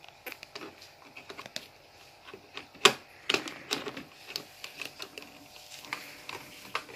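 Small plastic toy dishes and utensils being handled: scattered light clicks and taps, with one sharper click about three seconds in.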